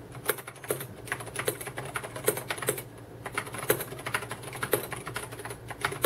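Typing on an Ajazz AK510 mechanical keyboard with tactile Cherry MX Brown–type switches and PBT double-shot keycaps: a quick, uneven run of key clacks with a brief lull about three seconds in.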